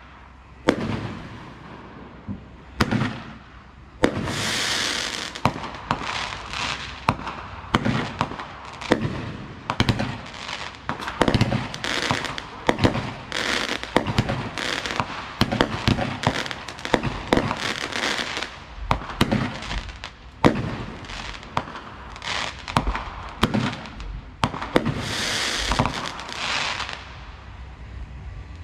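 A home-made finale rack of consumer fireworks cakes and tubes firing: a steady run of sharp bangs from aerial shells bursting, about one or two a second. There are two longer stretches of dense hiss, about four seconds in and again near the end.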